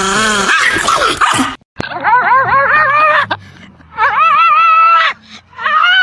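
A dog whining and yowling in strings of short, wavering, up-and-down cries, in three or four bursts with short pauses between them.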